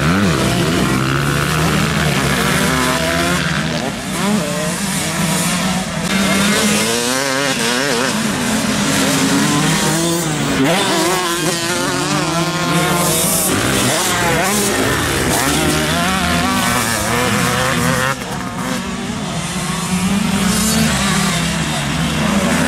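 Several motocross bikes racing past on a dirt track, their engines revving up and down as the riders work the throttle and shift through the corners, the pitch of several engines overlapping.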